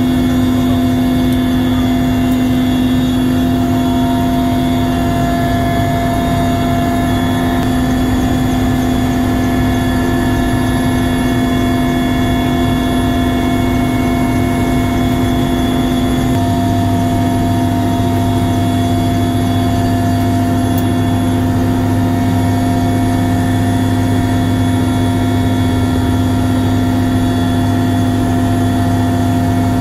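Mi-8MTV-1 helicopter's twin turboshaft engines and rotor heard from inside the cabin: a loud, steady drone with a strong steady hum. The deep part of the drone changes about sixteen seconds in.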